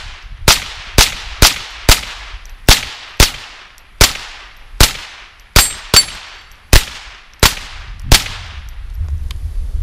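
A Ruger 10/22 semi-automatic .22 Long Rifle rifle fired rapidly, about thirteen sharp cracks at uneven intervals of half a second to a second, with the firing stopping a little after eight seconds in.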